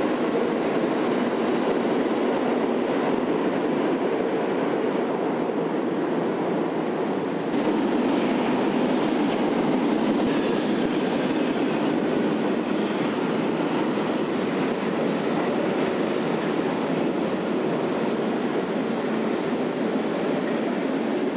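New York City subway train running along the platform, a loud, steady rumble of wheels on rails, growing louder about seven seconds in, with a few brief high-pitched squeals mid-way.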